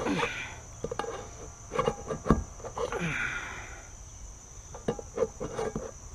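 Knife tip stabbed again and again into the lid of a tin can, a string of sharp metallic knocks with a scrape or squeal of metal now and then. Steady insect chirring goes on underneath.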